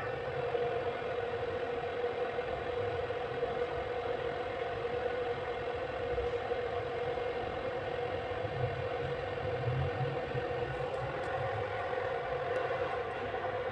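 Electric bike battery charger's cooling fan running with a steady whir while it charges the battery.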